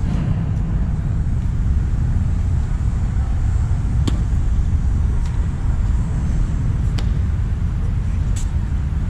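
Wind buffeting an outdoor camera's microphone, a steady low rumble, with two sharp clicks about four and seven seconds in.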